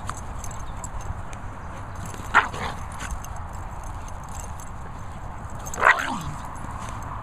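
A dog barking twice during rough play, two short sharp barks about two and a half and six seconds in, the second trailing off into a lower falling note.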